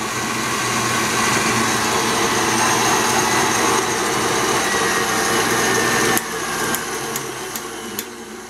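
KitchenAid tilt-head stand mixer's motor running at high speed with the dough hook fitted, a steady whirring hum. About six seconds in it drops sharply, with a few clicks, and falls again near the end as it is turned down.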